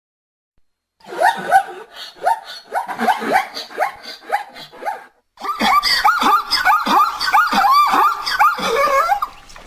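An animal giving a rapid series of short yelping calls in two bouts, each call falling or arching in pitch; the second bout is faster and louder.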